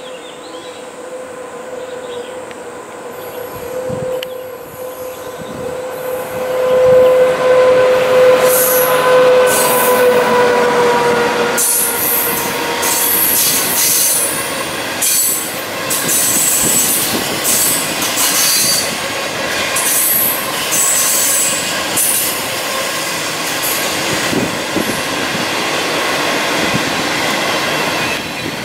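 An intercity passenger train hauled by an SS8 electric locomotive passing at speed. A long steady tone rises as it approaches and drops in pitch a little as it goes by. Then the coaches roll past with repeated clicks and high squeals from their wheels on the rails.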